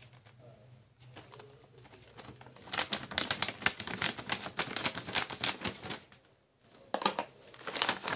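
Scissors snipping open a plastic cereal pouch, with the packet crinkling in the hand: a dense run of sharp crackles starting a little under three seconds in, a short pause, then more crinkling near the end.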